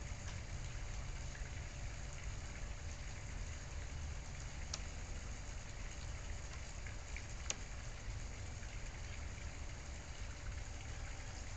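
Steady hiss over a low rumble and a faint steady hum, with two faint ticks, one about five seconds in and one about two and a half seconds later.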